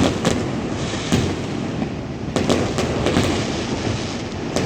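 Fireworks going off: a string of sharp bangs, several close together about two and a half seconds in, with a continuous noisy din between them.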